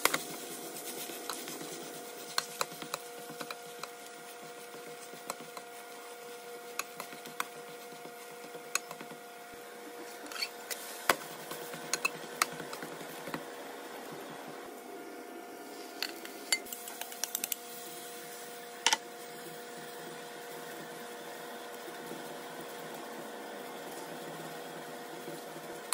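Spatula clicking and scraping against a nonstick frying pan while a zucchini-and-potato pancake fries, with sharp knocks now and then, the loudest about eleven and nineteen seconds in, over a steady hum.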